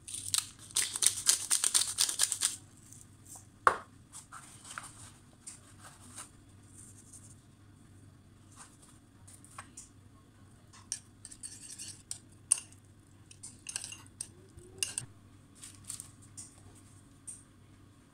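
A pepper mill grinding black pepper in a fast run of crackling clicks for about two and a half seconds. Then scattered light clicks and taps of kitchen utensils against a ceramic bowl.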